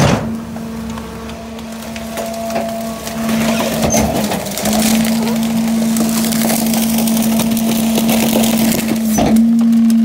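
Garbage truck's packer blade compacting plush toys and cardboard in the hopper, with crackling and crunching that builds from about three seconds in over a steady whine from the truck's hydraulics. A clunk comes at the start and another near the end.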